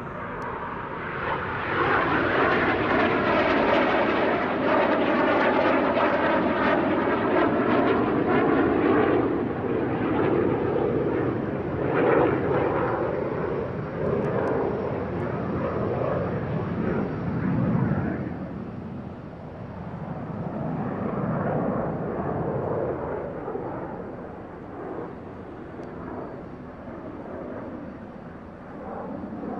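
Yak-130 jet trainer's twin turbofan engines loud in a low display pass: the jet roar swells about two seconds in with a sweeping, phasing whoosh as the aircraft goes by, stays loud until past halfway, then fades and rises again in waves as it manoeuvres farther off.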